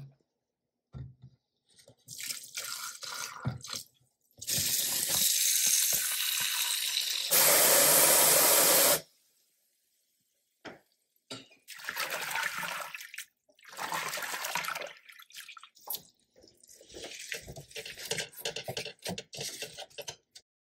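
Kitchen tap running into a stainless steel sink to fill it for washing leafy greens, louder for its last second and a half and shut off about nine seconds in. Afterwards come irregular splashes and drips as handfuls of wet leaves are swished in the water and lifted into a mesh strainer.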